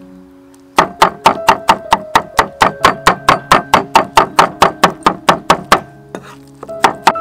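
Cleaver chopping soft roasted eggplant on a wooden chopping board: a fast, even run of chops, about five a second, starting about a second in and going on for about five seconds, then two more chops near the end.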